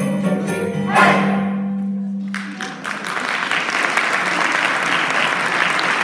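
Mixed choir holding its final chord with sleigh bells jingling, a bright shake of the bells about a second in. The chord ends at about two and a half seconds and audience applause breaks out and continues.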